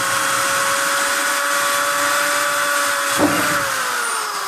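Electric hand drill running at a steady whine as it bores a small pilot hole into a metal shaft. About three seconds in there is a click, and the motor winds down with its pitch falling.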